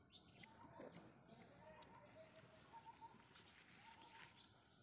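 Near silence with faint, scattered bird chirps in the background.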